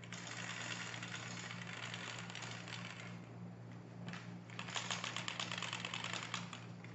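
Metal telescoping light stand pole rattling and scraping as it is handled, in two stretches of rapid clicking. The second stretch, from about four seconds in, is louder.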